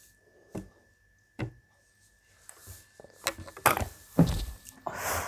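Light knocks, then a cluster of louder thumps and rustling from a juice carton, plate and wooden tabletop being bumped as a person drinks through a straw without hands; the loudest thumps come about four seconds in.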